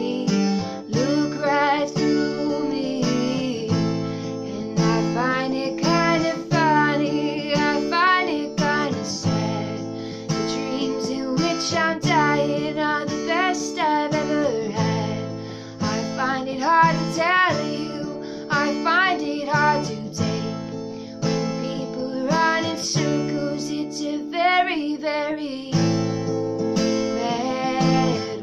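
A woman singing to her own strummed acoustic guitar, with a few short stretches where only the guitar plays.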